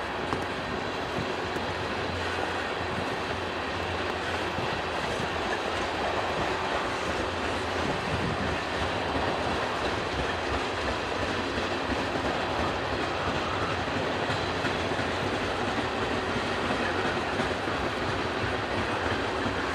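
Loaded freight cars (tank cars and covered hoppers) of a manifest train rolling past: a steady rumble and clatter of steel wheels on the rails, growing slightly louder partway through.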